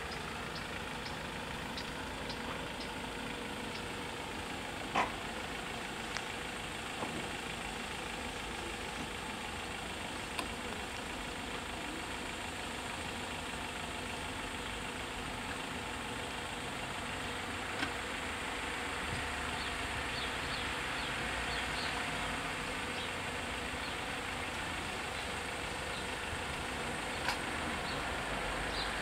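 Diesel engine of a truck idling steadily at a closed level crossing, with a few sharp clicks now and then and the sound growing slightly louder near the end.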